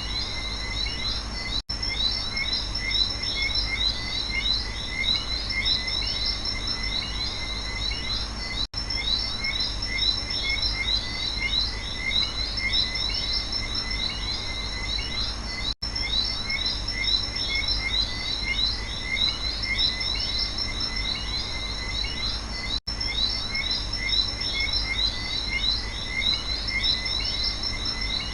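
Night rainforest chorus of calling insects and frogs: dense, continuous high chirping over a low hum. The whole sound cuts out for an instant about every seven seconds, four times.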